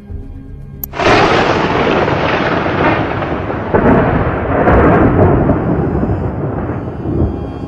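Thunder: a sharp crack about a second in, then a loud rolling rumble that swells again twice and slowly fades.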